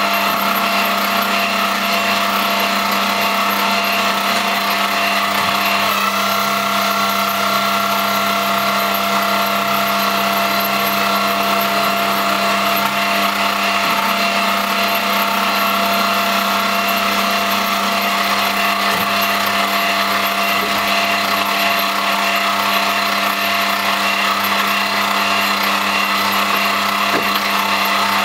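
Machine running steadily on an X3 milling machine converted into a CNC lathe: a constant motor hum with several held tones over a mechanical whir.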